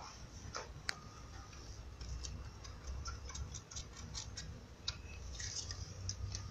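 Kitten suckling at a small feeding bottle: a run of soft, quick clicks and smacks at the nipple, a few at first and then several a second from about two seconds in.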